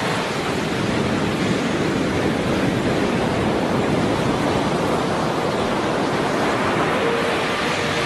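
Steady rushing water sound, even and unbroken with no swells. Faint held tones come in near the end.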